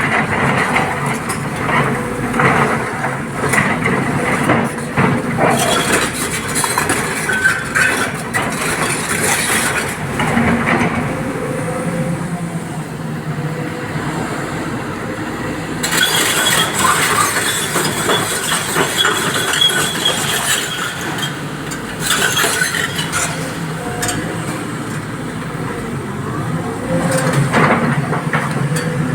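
Sany excavator's diesel engine running under load as it loads a dump truck, with stone clattering and clinking against the steel bed. About halfway through, the clatter gives way to a brighter hiss over the engine for several seconds.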